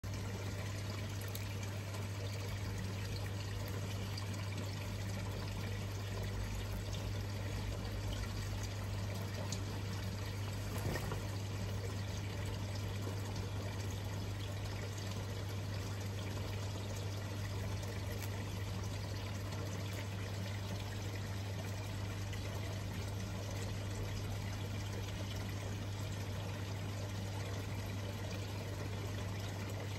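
Steady trickling, running-water noise with a low, steady hum beneath it.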